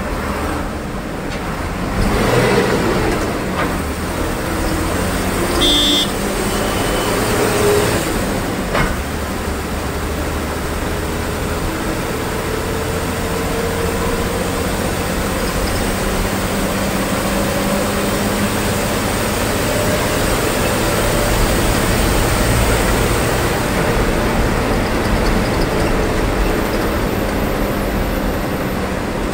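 Steady engine and road noise inside a moving KSRTC bus cabin, with the engine note slowly rising and falling as the bus drives on. A short high-pitched beep sounds about six seconds in.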